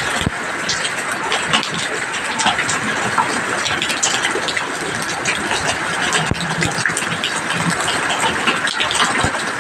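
Steady heavy rain falling: a dense, even hiss of many drops striking a surface.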